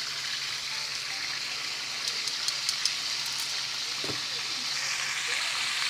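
Marinated pork chops sizzling in hot oil in a frying pan, with a handful of sharp pops of spattering fat about two to three seconds in.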